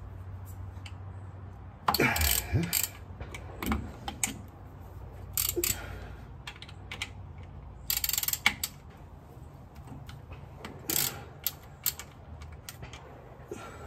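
Hand tools clicking and clattering on metal in irregular bursts during work under a TH400 transmission, with gunshots from a gun range in the background.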